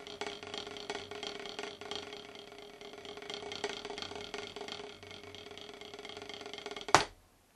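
Vater 5B hickory drumsticks playing a quick run of strokes on rubber drum practice pads. A single louder hit lands about seven seconds in, then the sound cuts off.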